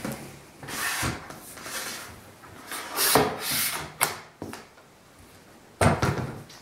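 Wooden parts of a homemade optical bench being slid and repositioned by hand: several separate scrapes and knocks of wood on wood.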